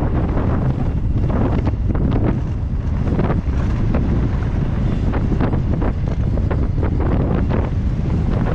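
Wind buffeting a GoPro's microphone on a mountain bike descending a dirt trail, a steady low rumble with frequent short clatters from the bike and tyres over the bumps.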